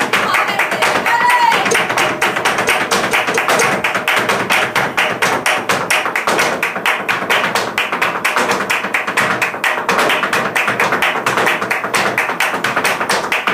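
Flamenco dance footwork: a rapid, steady run of heel and toe strikes on the stage floor, with hand-clapping and guitar accompaniment.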